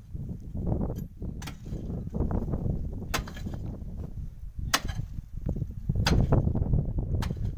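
Short-handled pick striking the rocky, gravelly floor at the bottom of a hand-dug well: about five sharp, single blows at an uneven pace, each a second or more apart, over a low rumble.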